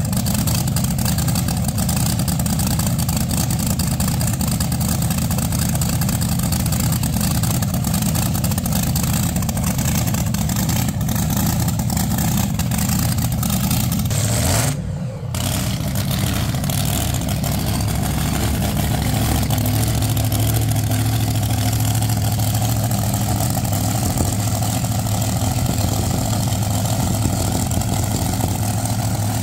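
Car engines running, idling with some revving, as a steady low rumble. The sound drops out for a moment about halfway through, then a steady low engine hum carries on.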